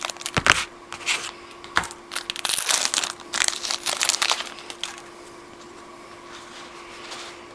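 Trading-card pack wrapper crinkling and rustling in the hands as a pack is opened, with sharp crackles for about five seconds before it stops.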